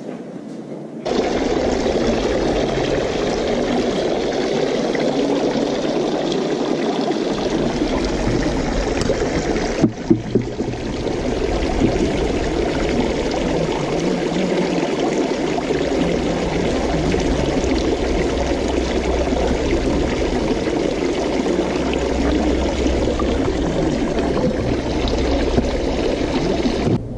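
Steady rush of flowing water, starting suddenly about a second in, with a brief break and a few sharp knocks about ten seconds in.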